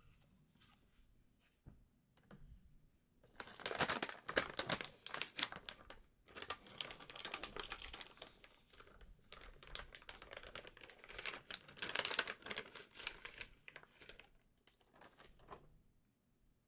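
Plastic packaging crinkling and rustling as it is handled, in irregular bursts that start about three seconds in and die away near the end.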